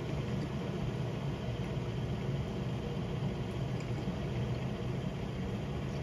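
Steady low mechanical hum over even room noise, unchanging throughout.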